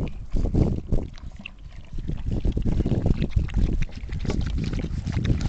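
Several puppies lapping and slurping milk from a dish together: a dense, irregular run of wet licks and smacks.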